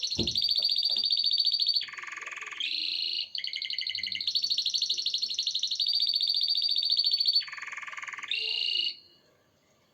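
Canary singing a string of rapid trills, each held for about a second before switching to another trill at a different pitch, some dipping lower. The song stops about nine seconds in.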